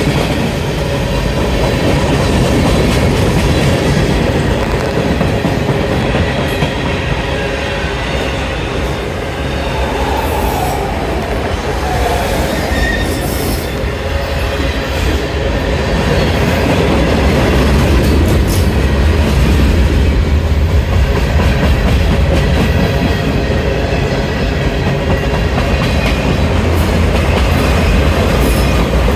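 Mixed freight cars of a manifest train rolling past close by: a steady heavy rumble of steel wheels on rail, with clickety-clack of wheel sets over rail joints and at times a wheel squeal.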